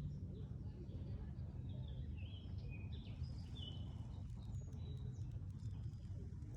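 Small songbirds chirping and twittering in short calls, busiest in the middle of the stretch, over a steady low rumble.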